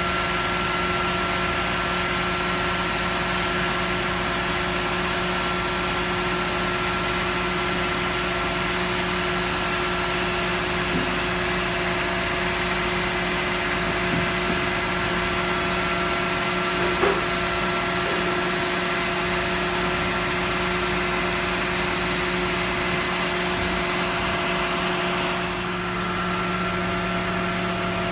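Steady whirring machine noise with a constant hum, like a large fan or blower running, and one light knock about seventeen seconds in.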